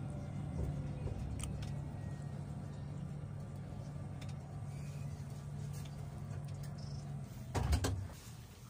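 Tram running along its rails, heard from inside: a steady low hum over wheel-on-rail rumble. A loud knock comes near the end, after which the hum falls away and it goes quieter.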